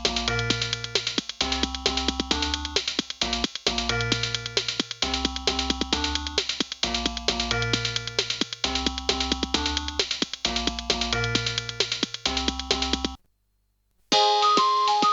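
Sony Ericsson K200i polyphonic ringtone played by an Alcatel 1054D phone's MIDI synthesizer: a short synthesized tune with a drum beat and bass, repeating its phrase. It stops about thirteen seconds in, and after a second's silence the next ringtone starts.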